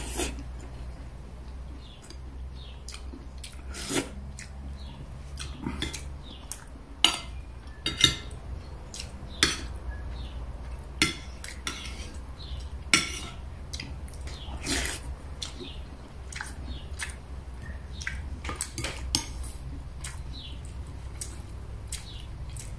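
Metal spoon and fork clinking and scraping against a ceramic plate and a glass bowl while eating, in scattered sharp taps a second or two apart, over a low steady hum.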